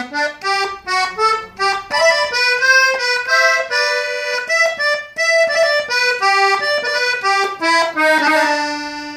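Hohner Compadre three-row button accordion playing a melody phrase of quick, short notes on the treble buttons, ending on a long held note that fades near the end.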